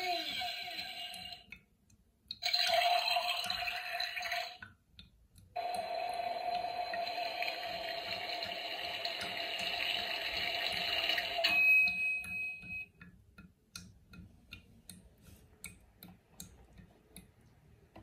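Toy coffee machine's small electric pump running and pouring water, a steady whine with splashing that stops briefly twice and cuts off about eleven seconds in. A short beep follows, then a run of light clicks.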